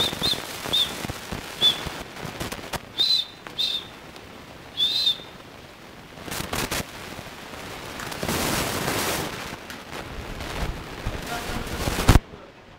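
Short, high chirps repeated irregularly several times, among scattered sharp clicks and knocks, with one loud sharp knock near the end.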